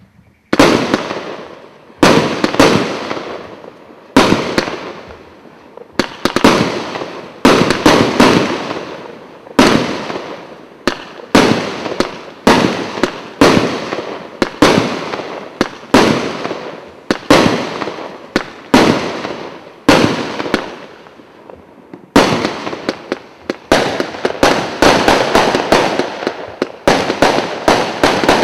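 Kimbolton 'Get In!' multi-calibre firework cake firing shot after shot, each a sharp bang with a fading tail, about one to two a second. About two-thirds of the way through, the shots come faster and closer together.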